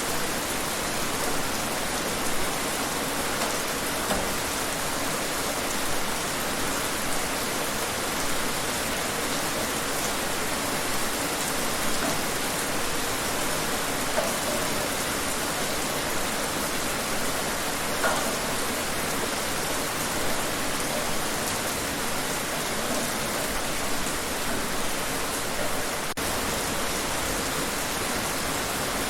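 Steady rain falling outside, a dense even hiss with faint scattered drop ticks.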